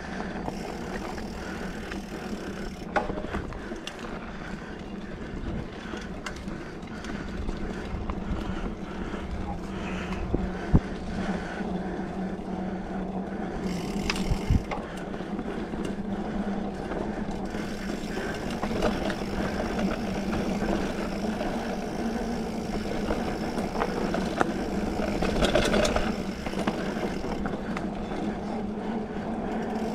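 2020 Specialized Fuse 27.5+ mountain bike ridden along a dirt trail: its tyres rolling with a steady hum, and scattered clicks and knocks over the ride. The drivetrain sounds bad from a damaged rear derailleur.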